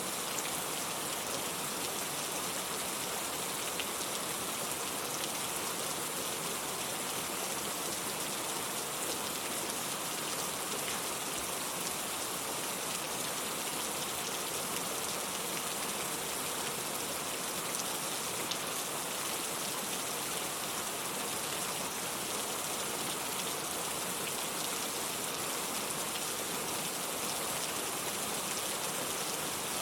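Steady rain falling on surfaces, an even hiss with scattered faint drop ticks.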